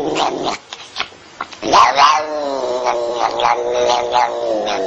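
A domestic cat yowling. One call ends about half a second in, a quieter gap follows, then a long drawn-out yowl starts sharply at about two seconds and wavers in pitch.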